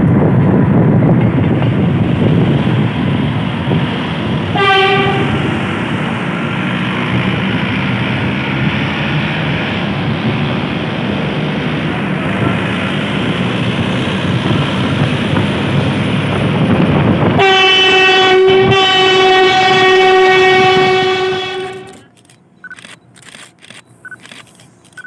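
A train passing close by, its wheels and cars rumbling loudly, with a short horn blast about five seconds in and a long, steady horn blast near the end.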